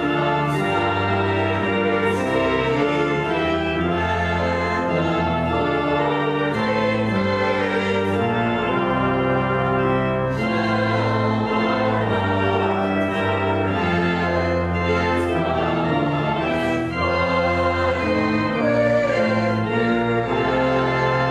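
Rebuilt church organ playing full sustained chords over a moving bass line, the chords changing about once a second at a steady volume.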